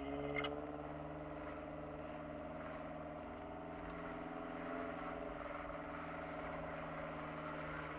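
Kia Sportage engine running at low, steady revs while the vehicle creeps along a snowy dirt track, heard from inside the cabin; the engine note rises and falls only a little.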